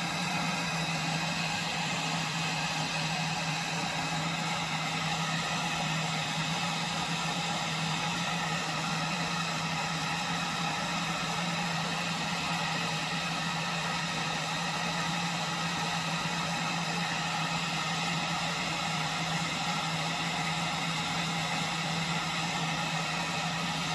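Propane canister stove burner running steadily under a pot of water that is heating but not yet boiling, a constant even hiss with a low steady hum beneath it.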